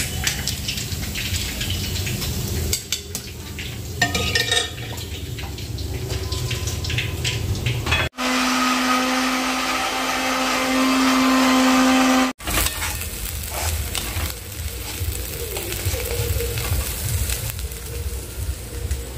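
Masala frying in a pan, with a few clinks of utensils. In the middle, cut in sharply, an electric mixer grinder runs for about four seconds with a steady hum as the roasted masala is ground.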